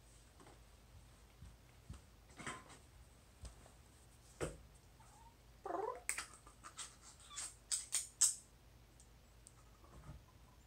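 A domestic cat gives one short meow, falling then rising in pitch, about halfway through. A run of sharp clicks and taps follows over the next two seconds, with a few soft knocks earlier.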